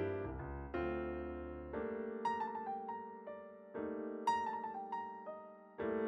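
Slow, gentle piano music: held chords that fade after each strike, with a simple melody of single notes added over them.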